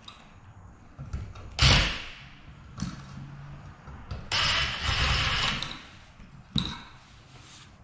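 Tools knocking and scraping at an electrical outlet box in the wall: a few sharp knocks and a scraping stretch of about a second and a half, as the box is opened up to make a hole for a wire.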